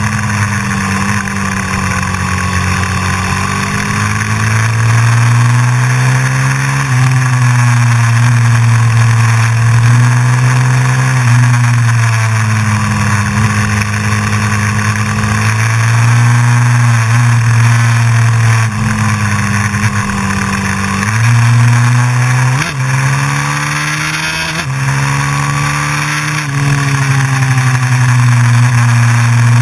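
Honda CRF450X's single-cylinder four-stroke engine under way, its note climbing under throttle and falling back again and again through the bends, over a steady rush of wind noise.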